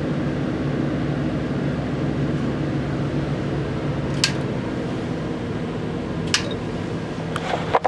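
Steady hum with several fixed tones from the railcar's running air-handling and electrical equipment. Two sharp clicks come about four and six seconds in, the second as a push button on the HVAC control panel is pressed.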